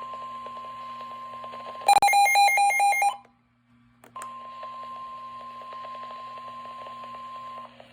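NOAA Weather Radio warning alarm tone, a steady 1050 Hz beep, over faint radio static. About two seconds in it is broken by a louder burst of rapidly switching electronic tones lasting about a second. A short gap and a click follow, then the steady alarm tone resumes for about three and a half seconds.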